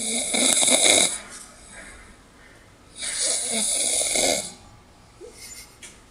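A person snoring heavily: two loud snores about three seconds apart, each a little over a second long, with a strong hissing breath through them.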